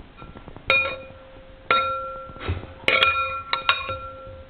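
A metal fork knocking a pomegranate over a glass bowl to loosen the seeds: about six sharp clinks, each ringing on briefly, two of them in quick pairs near the middle and end.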